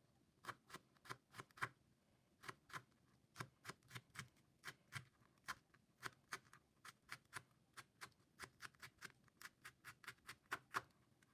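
Knife thinly slicing green chillies on a plastic cutting board: a steady run of sharp taps, about three a second, with a short pause about two seconds in.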